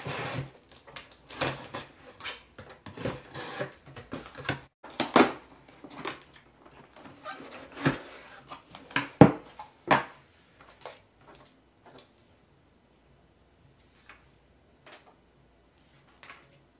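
Cardboard boxes being opened and handled: packing tape slit and peeled, cardboard scraping and rustling, with a few sharp knocks in the first half. The handling becomes sparse and faint for the last few seconds, with a little paper rustling.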